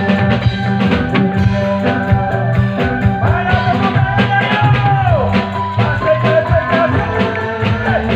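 Live band music: a voice singing a sliding melody over steady, regular drum beats, with a sustained instrumental tone behind it.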